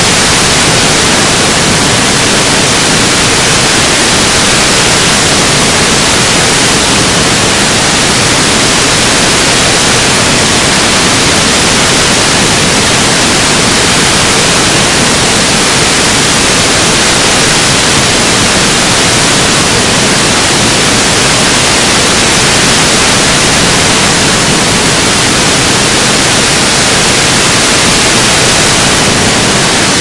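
Stereo white noise, a loud, steady, even hiss that never changes: the Ganzfeld stimulus that floods hearing with uniform, featureless sound.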